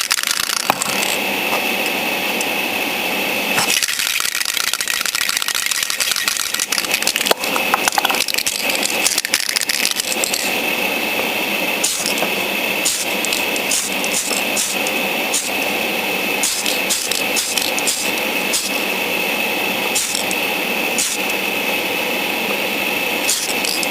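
Mr. Color aerosol spray can hissing as red paint is sprayed onto a plastic model part, with a steady hiss and scattered clicks and rattles throughout.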